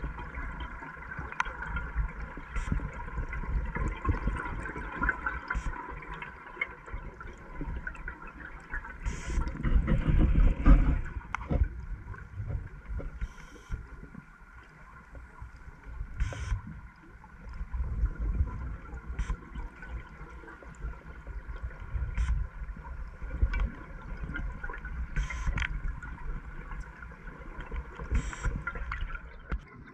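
Scuba diver's exhaled bubbles gurgling and rumbling underwater, surging loudest about ten seconds in, over a faint steady hum and a few scattered clicks.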